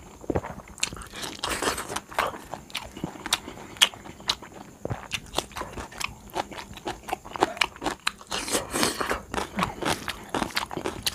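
Close-up eating sounds: chewing a mouthful of rice and stuffed okra, with fingers working rice on a steel plate. Irregular sharp clicks and wet smacks.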